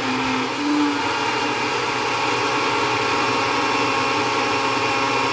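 Personal blender motor running steadily under load, blending frozen fruit.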